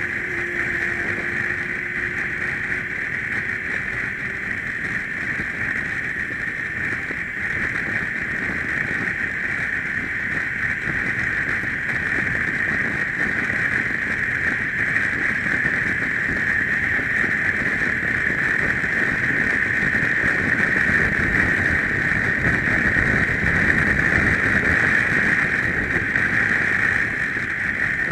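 Steady rush of wind and road noise on a BMW adventure motorcycle riding at road speed, a hiss that grows somewhat louder past the halfway point and eases off near the end.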